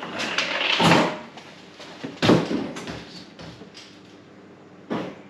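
An under-counter fridge being tilted and shoved into place under a stainless steel bench: heavy scraping and bumping in the first second and again about two seconds in, then a short knock near the end.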